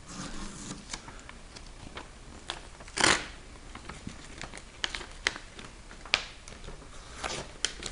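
Tape being peeled off a car's roof panel and crumpled: scattered crinkles and small clicks, with one louder tearing rasp about three seconds in.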